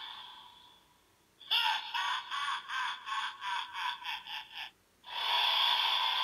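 DX Evol Driver toy belt playing its electronic transformation sound effects through its small built-in speaker. There is a run of short pulses, about three a second, for around three seconds. After a brief gap a steady electronic sound starts, about five seconds in.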